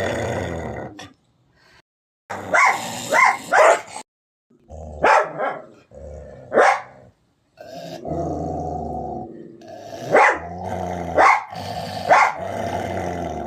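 A dog growling and barking: short sharp barks, three in quick succession and then several single ones, with a long low growl running through the second half.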